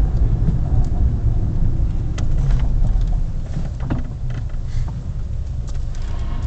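Mini Cooper driving, heard from inside the cabin: a steady low engine and road rumble that eases off about halfway through, with a few faint clicks.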